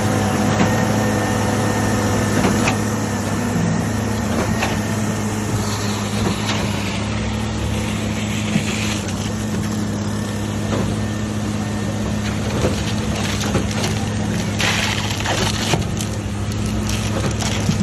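Concrete being poured, with a heavy engine running steadily in a constant low hum under a rough wash of sliding, scraping concrete and scattered knocks.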